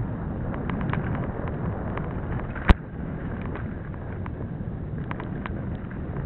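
Mountain bike rolling over a dirt forest trail: a steady low rumble of tyres and wind on the microphone, with scattered small ticks and rattles. One sharp knock comes about two and a half seconds in.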